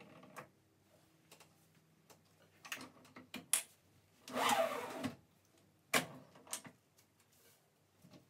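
Handling noises at a guillotine paper cutter: a low steady hum stops about two seconds in, then scattered clicks and knocks, one longer scraping rustle about halfway through, and a sharp knock about six seconds in.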